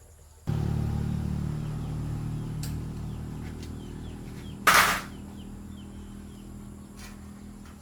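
Electric fan motor switched on about half a second in and humming steadily, easing slightly in level, with a sharp noisy burst near the middle. Faint bird or insect chirps behind.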